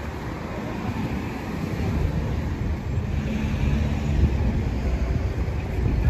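Road traffic: a motor vehicle's engine hum passing, over a steady low rumble of street noise.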